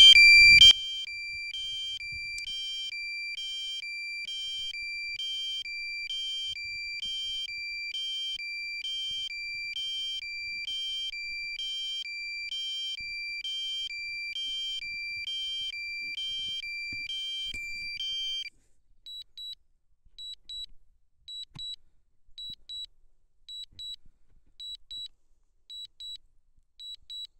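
DJI Mini SE remote controller sounding its critical-low-battery alarm: a train of high beeps, a little over one a second. About two-thirds of the way through it changes to fainter, higher double beeps.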